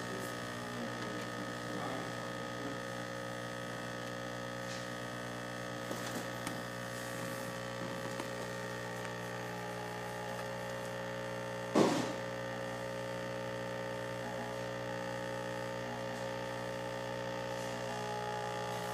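Hot-air reflow machine running as it heats a laptop graphics chip: a steady, even hum made of several tones. A single sharp knock about twelve seconds in.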